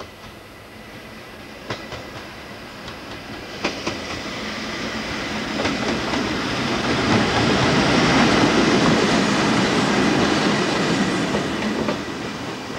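A diesel freight locomotive approaching and passing. Its running grows louder to a peak about two-thirds of the way through and then eases, with sharp clicks of the wheels over rail joints.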